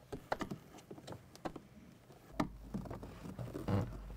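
Small, irregular plastic clicks and taps as wiring connector plugs are pried and pulled loose from the door panel's switch with a screwdriver.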